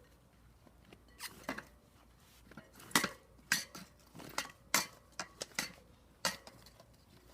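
Irregular metallic clinks and knocks, about a dozen, loudest about three seconds in, from a bike wheel and tools being handled while the inner tube is worked out of the tire.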